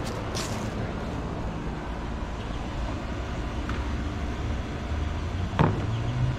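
Steady low rumble of background noise, with a short sharp sound about five and a half seconds in.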